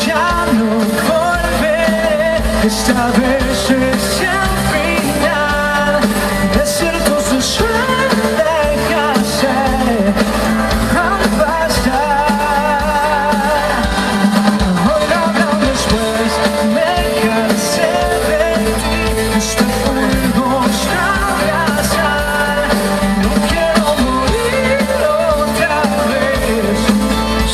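Pop-rock music with guitar and a voice singing, playing steadily.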